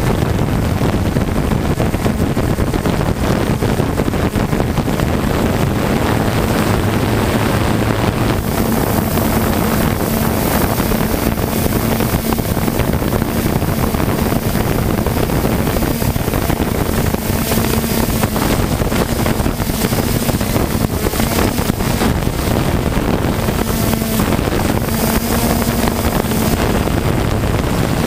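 3DR Solo quadcopter's electric motors and propellers running in flight: a steady buzzing hum whose pitch shifts slightly, mixed with wind rushing over the microphone.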